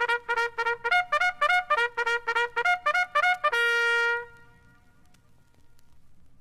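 A trumpet plays a fast call of short, tongued notes that alternate between two pitches a fifth apart. It ends on one long held note that stops about four seconds in, leaving only faint background hiss.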